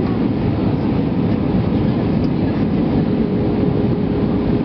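Steady cabin noise inside an Airbus A320-232 descending to land, heard from a window seat beside the wing: a deep, even rumble of airflow and its IAE V2527-A5 engines. A faint steady hum joins about three seconds in.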